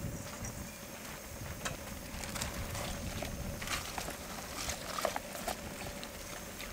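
Cooking noises: scattered light taps and clinks of utensils and cookware, over a faint steady hum.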